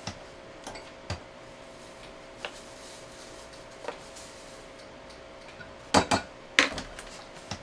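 A few light clicks of a measuring cup against a glass mixing bowl while cornmeal is measured out, then two sharp knocks about six seconds in as the cup is tapped against the bowl to empty it.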